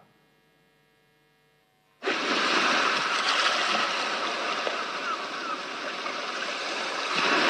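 Near silence for about two seconds, then a sudden steady rush of sea water and waves that swells slightly near the end.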